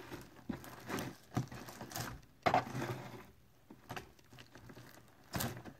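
Sticky, melting slime being squeezed and pulled by hand, giving soft wet crackles and clicks every second or so. The slime is going runny from the lip gloss mixed into it.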